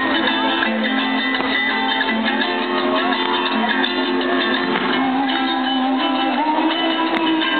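Music with guitar, a steady layer of held notes, and no firework bangs standing out.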